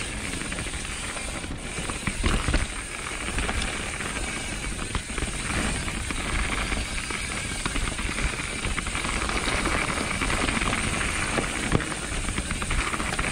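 Wind buffeting the camera microphone on a mountain bike riding fast down a dirt trail, with tyre noise and the bike rattling and knocking over bumps.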